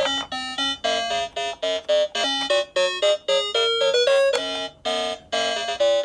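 A toy ambulance's sound chip playing a quick electronic tune of short, separate notes through its small speaker, set off by pressing one of its picture buttons.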